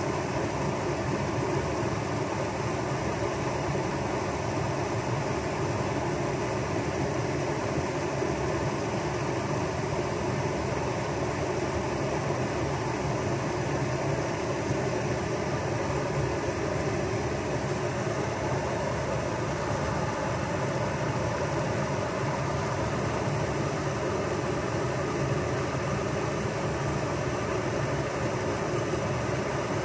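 Creek water pouring over a small dam spillway: a steady rushing that does not change.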